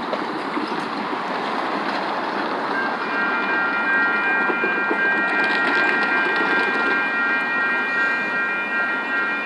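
Metro Blue Line light-rail train running past over the grade crossing: a steady rolling rush of wheels on rail that grows louder about three seconds in. A steady high-pitched multi-tone squeal sets in at the same point and holds through the rest of the pass.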